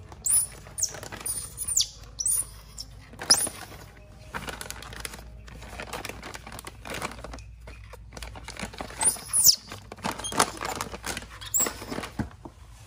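Newborn baby monkey giving shrill, high squeals that fall in pitch, several in quick succession at the start and again a few seconds before the end. Small taps and scrapes can be heard between the cries as it moves about in the plastic tub.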